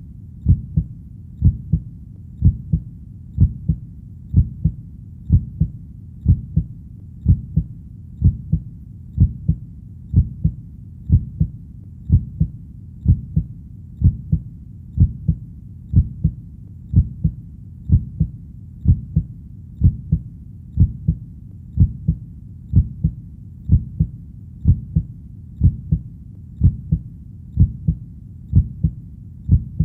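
Steady heartbeat, each beat a low double thump ('lub-dub'), repeating evenly at about one beat a second.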